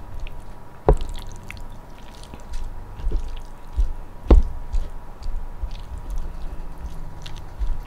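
Sisig being mixed on its plate: wet squishing and stirring, with two sharp clicks against the plate.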